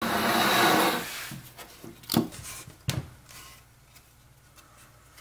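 A slab of old cherry wood scraping across a particleboard workbench top, loud for about a second, then two sharp wooden knocks a little after two seconds in, less than a second apart, as the board is set down and handled, followed by faint handling rustle.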